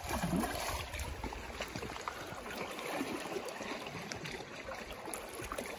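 Shallow lake water gently lapping and trickling around shoreline rocks.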